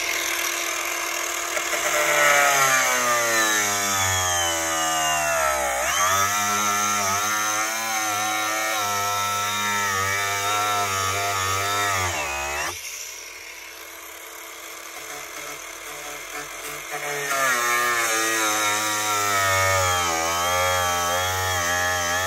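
Angle grinder with a thin cutting disc running at speed. Its motor pitch sags and recovers and wavers as the disc is pressed into the work. It goes quieter for a few seconds midway, then bears in again.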